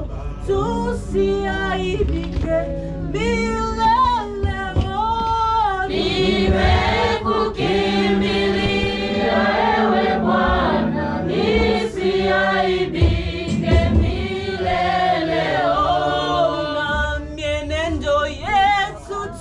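A church choir singing a Swahili gospel worship song, with a steady low bass beneath. The singing grows fuller about six seconds in, as more voices join.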